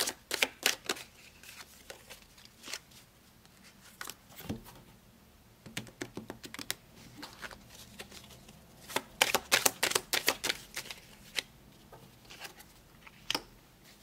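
A deck of tarot cards being shuffled by hand: bursts of quick, light card clicks with quieter pauses between them.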